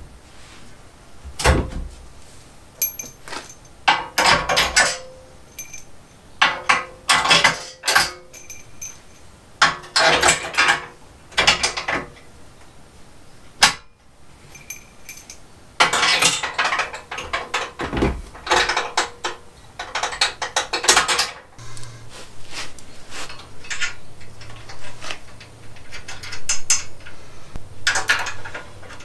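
Socket ratchet wrench clicking in repeated short bursts as bolts are turned, with pauses between and a few sharp knocks of metal tools.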